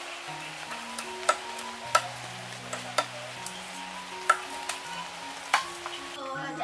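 Knives scraping scales off fish and cutting on cutting boards: a steady scratchy rasp with five sharp knocks of the blades against the boards. Soft background music plays underneath.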